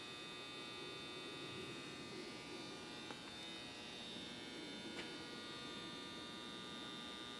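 Faint steady electrical hum and buzz with a thin high whine, broken only by a couple of faint ticks.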